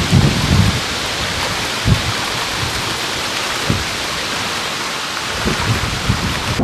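Strong gusty wind ahead of an approaching severe thunderstorm line, a steady loud hiss of leafy trees thrashing. Gusts buffet the microphone with a low rumble at the start and again near the end, with two brief thumps in between.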